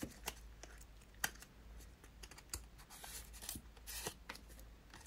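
Paper leaflets and thin white card being handled and slid out of a cardboard sleeve: scattered light clicks and brief rustles of paper on card.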